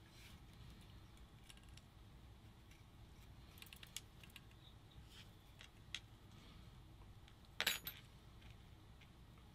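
Faint, scattered small metal clicks and clinks, with one louder short clatter near the end: small screws and a tool being handled while a circuit board is fastened into a paintball marker's frame.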